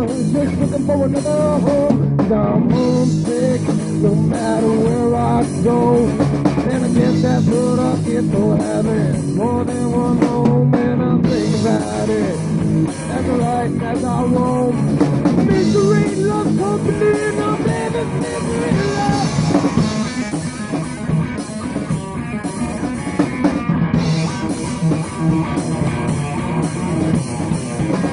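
Live rock band playing: electric guitar and drum kit together, a full, steady band sound.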